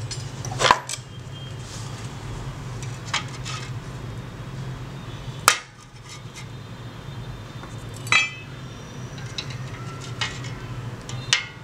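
Rusty steel scissors and pliers clinking and knocking against a metal soaking tray as the scissors are lifted and moved in the liquid: a series of separate sharp clinks, the loudest about halfway through.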